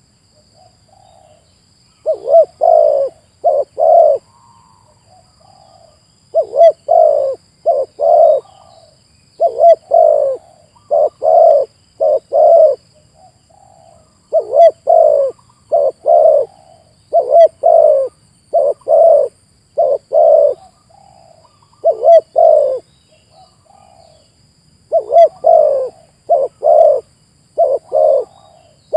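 Spotted dove cooing: repeated phrases of several short, low coos, each phrase followed by a pause of a second or two.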